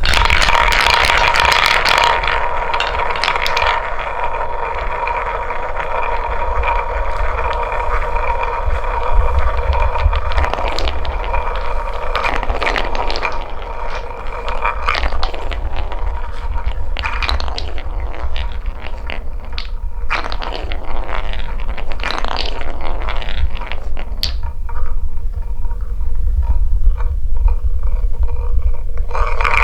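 Balls rolling down a wooden marble run track: a continuous rolling rumble with scraping and frequent clicks and clatter as they run through the track.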